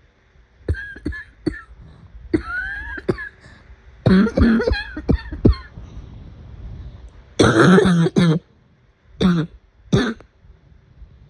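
A person in a coughing fit, coughing in repeated short bouts. The loudest cluster comes about seven to eight seconds in, and a couple of single coughs follow near the end.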